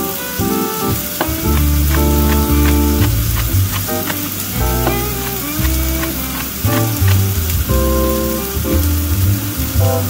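Sausages sizzling in a hot frying pan, a steady hiss, under background music with a strong bass line.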